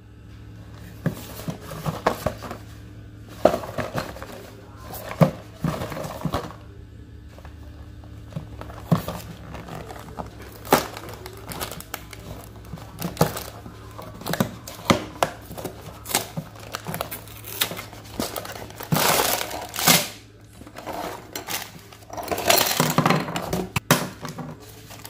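A cardboard LEGO set box being torn open, then plastic parts bags crinkling and rustling as they are handled, with scattered clicks and taps of loose pieces. The longest bursts of crinkling come in the second half.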